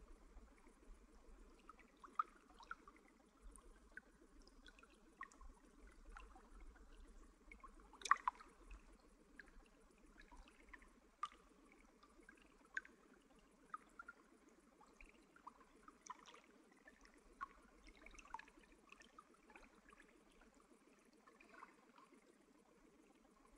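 Faint trickling stream water, a steady soft wash with irregular small drips and plinks, the strongest about a third of the way in.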